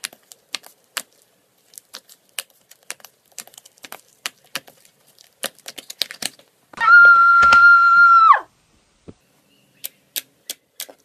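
Fingers poking slime in a clear plastic tub, making a quick, irregular run of sharp clicks and taps. About seven seconds in, a loud steady electronic tone sounds for about a second and a half and slides down in pitch as it cuts off, followed by a few more clicks near the end.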